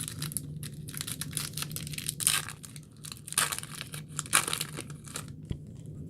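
A trading card pack's wrapper being torn open and crinkled by hand: a run of irregular crackles and rustles, the loudest bursts about two, three and a half and four seconds in, easing off near the end.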